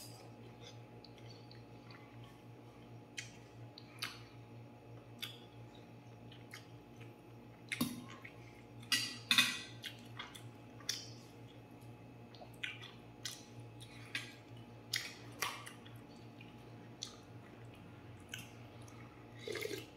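Eating sounds: a metal fork and spoon clinking and scraping in a stainless steel bowl of soup noodles, with scattered slurping and chewing. A few louder, noisier sounds come about eight to nine and a half seconds in, over a low steady hum.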